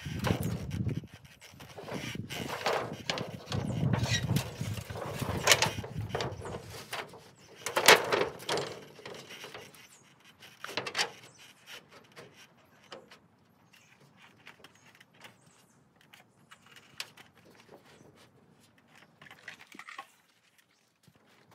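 Corrugated roof sheeting scraping and clattering against wooden rafters as it is pushed into place, with several sharp knocks. After about ten seconds only scattered faint clicks remain.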